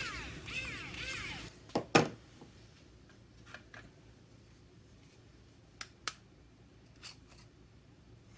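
Three short rising-and-falling whines in the first second and a half. Then two sharp knocks, the second the loudest sound here, and a few light clicks of small objects being handled on a bench.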